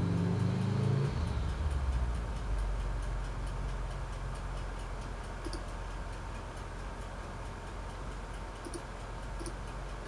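Steady low hum with a fast, faint, regular ticking, and a few soft clicks later on; a few low tones fade out about a second in.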